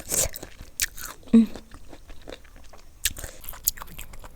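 Close-miked chewing and biting: a run of wet mouth clicks and smacks, with a brief hummed voice sound about a second and a half in.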